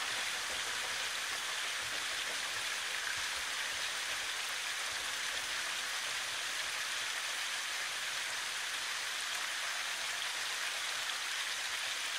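Rushing water of a stream, a steady, even hiss that does not change.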